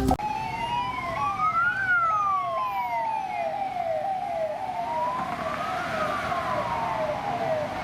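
Ambulance siren: a slow wail that rises and falls twice, layered with a fast, repeating rising yelp.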